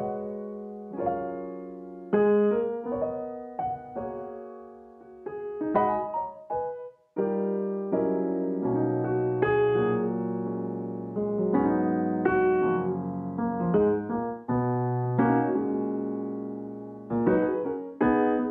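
Background piano music: a gentle melody of struck notes over chords, with a short break about seven seconds in.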